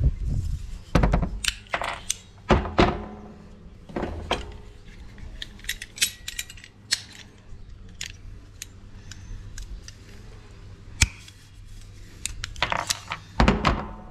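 Scattered clicks, knocks and small metal rattles of hand-tool handling: locking pliers clamping a tap valve, then being set down on a wooden tabletop, with one sharp click late on.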